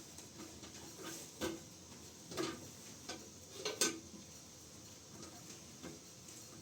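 Kitchenware clinking and knocking: about five separate light strikes over a few seconds, the loudest near four seconds in, then only faint background.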